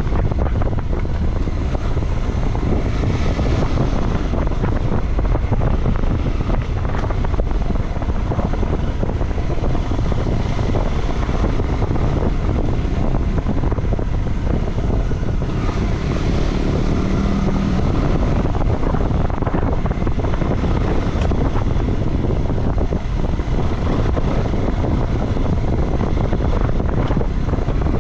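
Motorcycle engine running under way, with heavy wind buffeting on the microphone.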